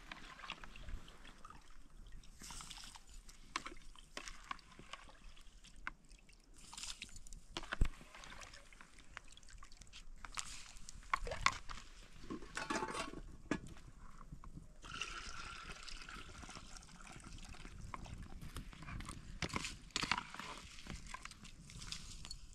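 Boiled rice being ladled out of a pot of boiling water into a plastic colander: water sloshing, draining and dripping back into the pot, with sharp knocks of the ladle against the pot now and then.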